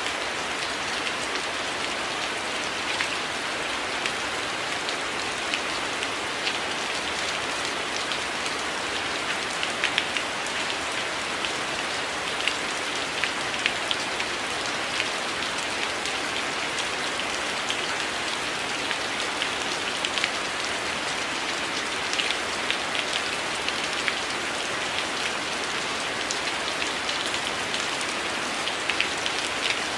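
Steady rain falling on window glass: an even hiss with many single drops tapping sharply throughout.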